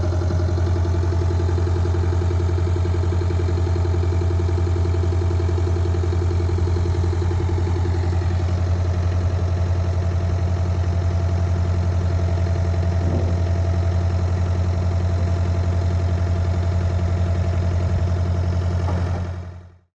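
Waldon loader backhoe's engine idling steadily, fading out near the end.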